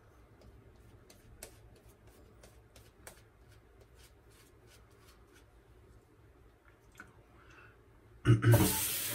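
Boar-bristle shaving brush working lather on the face: soft, quick ticks, several a second. About eight seconds in, a sink faucet is turned on and water runs loudly.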